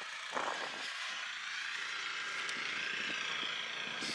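Steady hum of a distant engine over outdoor background noise.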